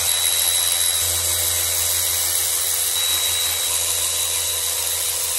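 Cordless electric ratchet running in one long steady spin with a thin high whine, zipping bolts out of an outboard powerhead's bottom bearing carrier.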